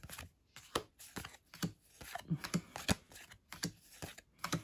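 Pokémon trading cards being flicked through in the hand, each card slid off the front of the stack to the back. This makes a dozen or so short, irregular paper snaps and rustles.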